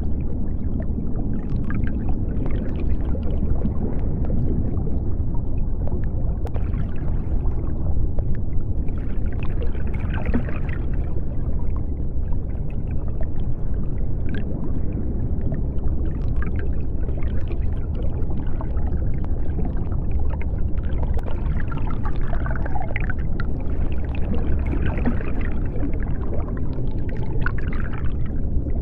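Underwater ambience: a steady deep rumble with scattered bubbling and small clicks.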